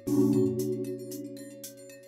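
Background music: a sustained chord struck at the start and slowly fading, over light, regular high ticks.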